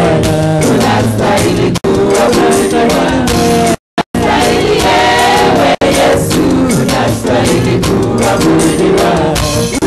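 A gospel praise and worship team singing together into microphones. The sound cuts out for a split second a few times.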